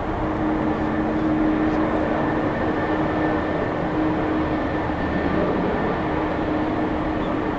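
Boeing 767-200's twin turbofan engines running at low taxi thrust as the jet turns onto the runway to line up. It is a steady jet rumble with a held hum and a faint higher whine over it.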